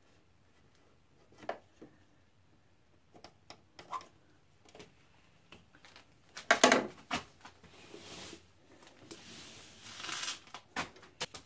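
Hands working the stiff insulated wires of a 10-gauge cable inside a breaker panel: scattered clicks, scrapes and crinkly rustling, with a louder burst of crackling about six and a half seconds in.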